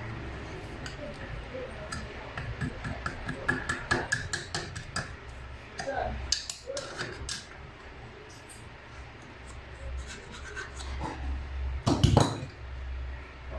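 Metal parts and tools clinking, knocking and scraping in irregular bursts, with a louder clatter about twelve seconds in.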